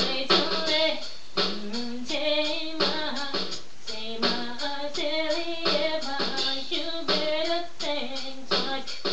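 A female voice singing a song with held, wavering notes over a backing track with a steady beat.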